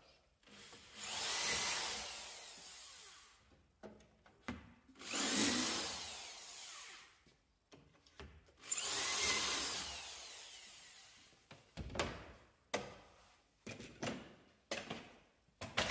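Electric drill boring three holes in turn through a drilling jig into a chipboard panel, each a burst of a couple of seconds that peaks and then fades. Near the end comes a run of short knocks and clicks as the clamps and jig are handled.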